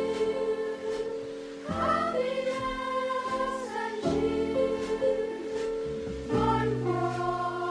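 Background music: a song with singing over sustained chords that change about every two seconds.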